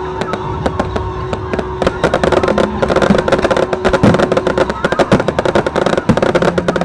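Aerial fireworks crackling and popping, the sharp reports thickening about two seconds in into a dense, rapid crackle before thinning out near the end.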